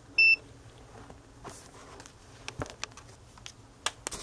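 A digital multimeter (Vici VC97) gives one short, high beep as one of its buttons is pressed. This is followed by scattered clicks and knocks of the meter and its test leads being handled.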